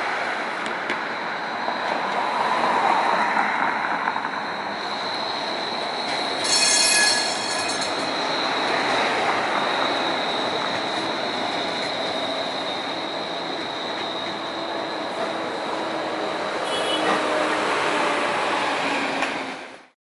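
A tram or light rail train running on its rails, with steady track noise and a high whine throughout. About seven seconds in, a brief loud high-pitched tone sounds over it.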